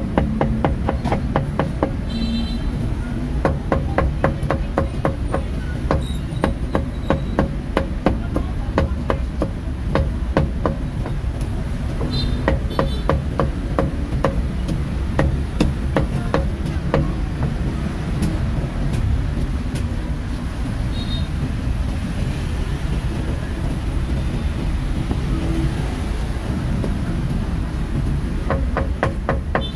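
Meat cleaver chopping roast pork belly and braised pork on a thick wooden chopping block: a steady run of sharp knocks, two or three a second, thinning out in the second half.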